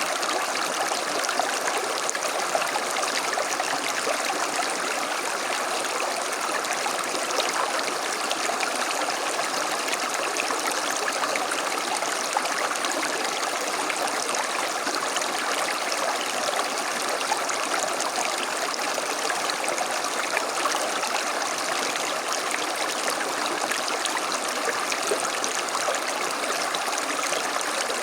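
A small stream running over stones, a steady rushing and trickling of water with no let-up.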